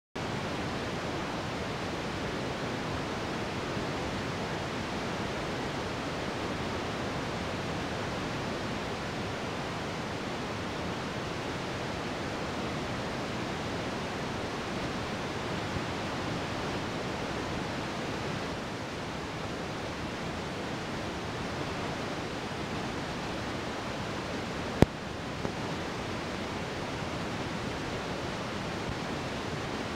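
Steady, even rushing noise of a moving bus heard from inside the cabin, the road and wind noise of the ride. One sharp click stands out about 25 seconds in.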